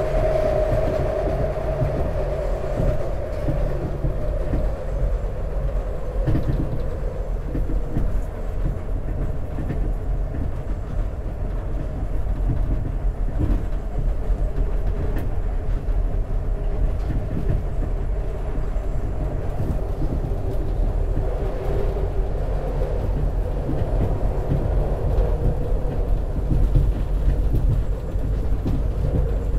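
A SEPTA Market-Frankford Line train running at speed on the elevated track, heard from inside the car: a steady low rumble of wheels on rail with a droning tone that wavers slightly in pitch, and scattered faint clicks.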